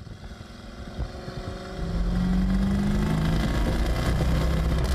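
1962 Oldsmobile Jetfire's turbocharged 215 V8 running as the car drives toward the camera. The engine gets louder over the first two seconds, then holds a steady drone.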